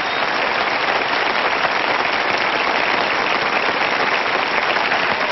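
Studio audience applauding: many hands clapping in a dense, steady wash, a little louder from the start onward.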